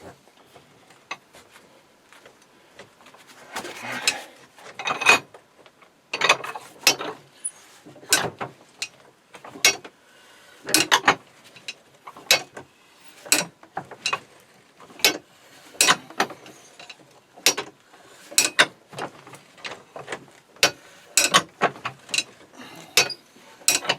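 Sharp metallic clicks from hand tools working a heated, rusted-in rod loose: a few scattered at first, then a steady series of about one click every two-thirds of a second from about six seconds in.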